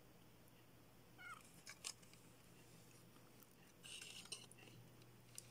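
Near silence, with a few faint clicks and a short rustle from a small circuit board being handled in the fingers.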